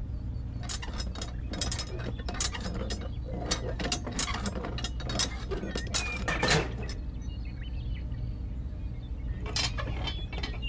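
Plastic parts of a small DIY toy tractor clicking and rattling in quick irregular runs as its wheels are handled and pushed, over a steady low hum. The clicking pauses about two-thirds of the way through and starts again near the end.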